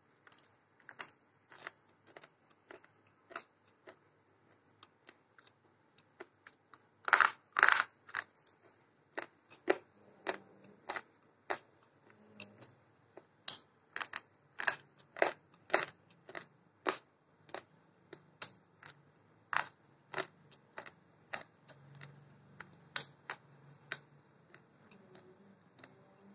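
Slate pencils bitten and chewed between the teeth: a long run of sharp, separate crunches, about one or two a second, loudest in a cluster about a quarter of the way in.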